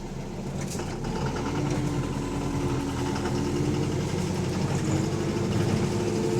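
Bus diesel engine running with a fast, regular knock, typical of a worn connecting-rod bearing (rod knock). It gets louder about a second in, and its note slowly rises.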